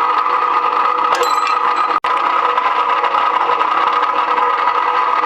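GQ50 rebar cutter's electric motor running steadily with a constant mechanical hum. The sound cuts out for an instant about two seconds in.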